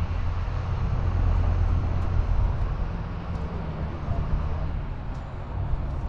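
Sightseeing double-decker bus's engine running as it drives, a steady low drone heard from the open top deck with road and traffic noise.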